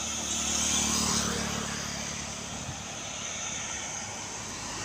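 A motor vehicle passing on the highway: engine hum and tyre hiss swell in the first second, then fade away by about three seconds in.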